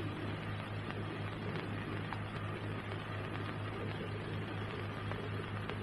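Steady hiss with a low electrical hum and a few faint clicks, without speech or music: the background noise of an old film soundtrack.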